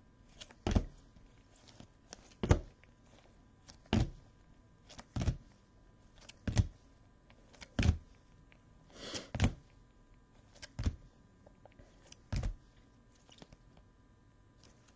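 Trading cards being set down on a table one at a time, a soft tap or thunk about every second and a half, ten or so in all.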